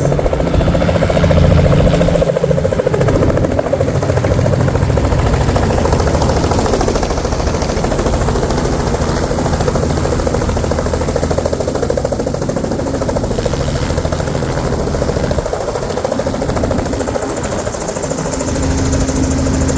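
Tour helicopter coming in close, its rotor chop a loud, rapid, steady beating with a low engine hum. It is loud enough to drown out a voice, easing off a little midway and swelling again near the end.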